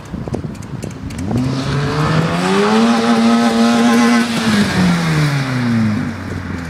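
Opel Corsa B's C20XE 2.0-litre 16-valve four-cylinder, breathing through a Group A header, a Group A sport exhaust and an open air filter, revving up, holding high revs for about two seconds, then dropping back.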